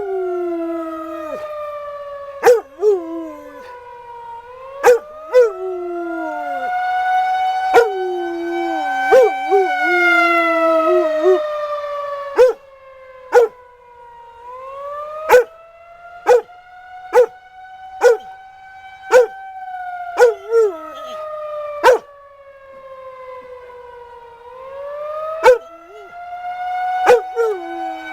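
Tornado warning siren sounding its monthly test: a loud wailing tone that slowly falls and rises again, about every ten seconds. A dog barks many times and howls along with it at a lower, wavering pitch.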